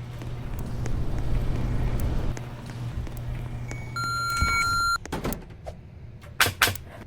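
Steady low electrical hum with rustling noise, then a single electronic beep lasting about a second, about four seconds in, followed by a few sharp clicks or knocks.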